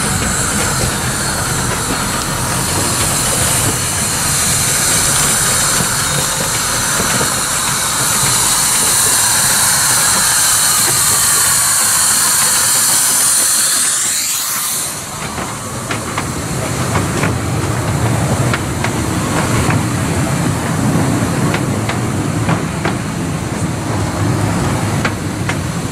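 Miniature steam locomotive 'Pilgrim' hissing loudly as it lets off steam while running in. The hiss stops about halfway through, leaving the rumble and clicking of its coaches rolling over the rail joints.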